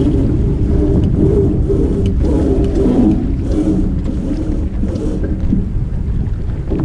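Wind buffeting the microphone on a sailboat under way, with water rushing along the hull. Over it runs a wavering low moan that rises and falls, loudest about three seconds in.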